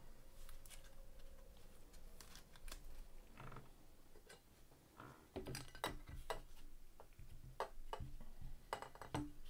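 Light plastic clicks and rustles as gloved hands slide a trading card into a soft sleeve and rigid plastic top loader and set cards down, in scattered small taps.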